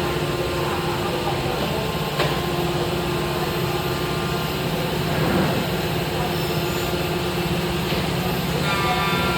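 CNC machine with an automatic tool changer running with a steady mechanical hum, a sharp click about two seconds in. A steady whine of several high tones comes in near the end.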